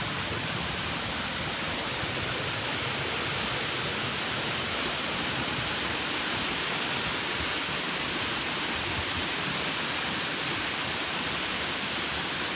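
A large waterfall falling onto rock, heard close by as a steady, unbroken rush of water.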